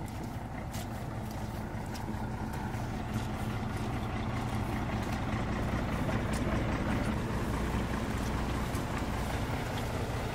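A truck's engine running as it draws slowly near, a low steady hum growing gradually louder.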